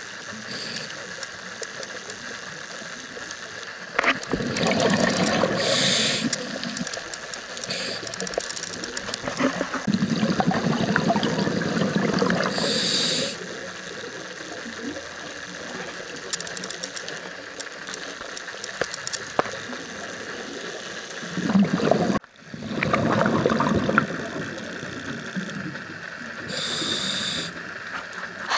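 A scuba diver breathing through a regulator, heard underwater: exhaled bubbles gurgle and rumble for a few seconds at a time, and a short hiss from the regulator comes about three times.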